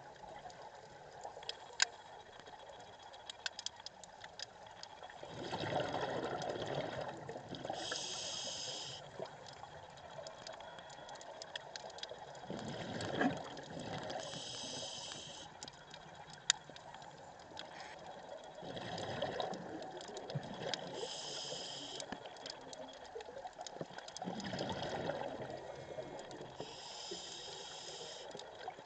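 A scuba diver breathing through a regulator: a rush of exhaled bubbles, then a short hiss as the diver inhales, four times at an even pace of about one breath every six or seven seconds. A few sharp clicks are scattered between the breaths.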